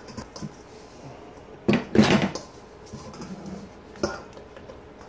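Metal rotisserie spit and its prong forks clanking and scraping against a stainless steel bowl as a roasted chicken is worked off the spit, with the loudest clatter about two seconds in and a sharp knock near the end.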